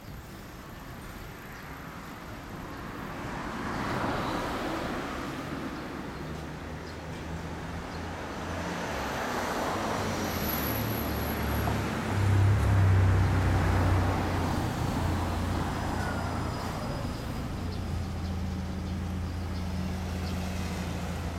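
Kawasaki ZRX1200R's inline-four engine idling through a Nojima FASARM titanium racing exhaust: a steady low note that swells for a couple of seconds about halfway through.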